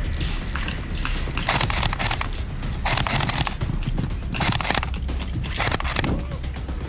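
Footsteps crunching through dry leaves and brush, irregular and about one every second or so, over a steady low rumble of wind and camera-handling noise.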